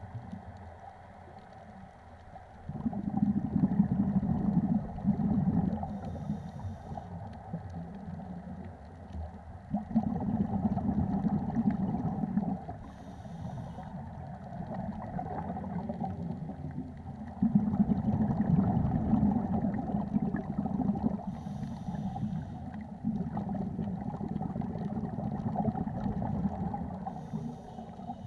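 Scuba regulator breathing heard underwater: exhaled bubbles rumble and gurgle in bursts of about three seconds, roughly every seven seconds, with a brief hiss of inhalation through the regulator between them.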